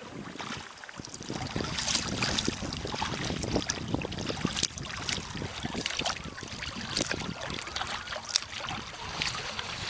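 Sea water splashing and slapping around a sea kayak on choppy water, with many short irregular splashes, and wind buffeting the microphone.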